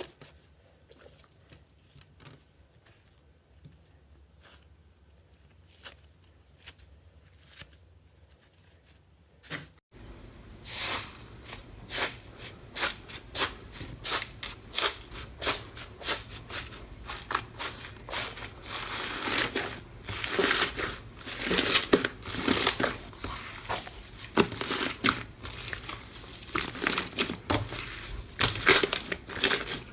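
Slime being handled, making sticky clicks and pops: faint and sparse for about the first ten seconds, then, after an abrupt change, a louder dense run of popping and crackling.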